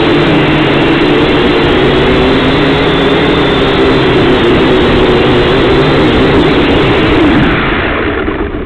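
Syma X5C-1 quadcopter's small brushed motors and propellers whining steadily, heard from the drone's own camera. The whine fades near the end as the motors slow down with the drone at the bench.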